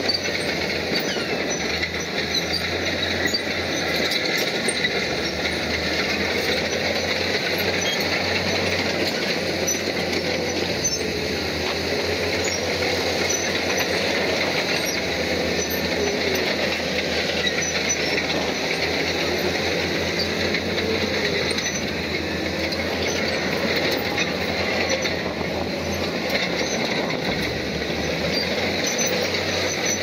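Crawler bulldozer working, its diesel running steadily while the steel tracks squeal and clank.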